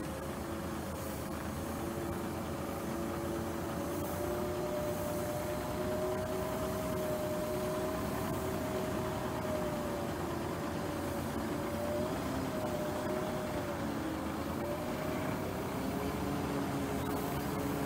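Heavy tractor unit's engine running as it slowly tows a loaded low-bed trailer, with a faint whine that drifts gently up and down in pitch.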